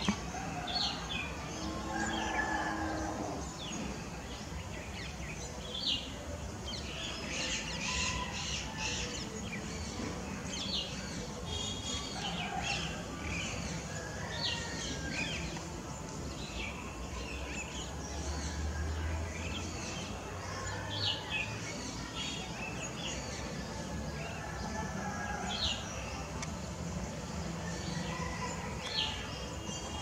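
Several birds chirping at irregular intervals, short high calls scattered over a steady outdoor background hiss, with a low rumble a little past halfway.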